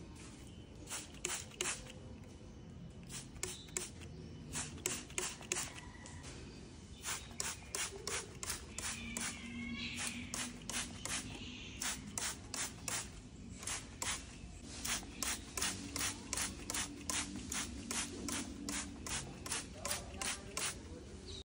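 Clear plastic trigger spray bottle misting houseplant leaves: quick hissing squirts, about three a second, sparser in the first few seconds.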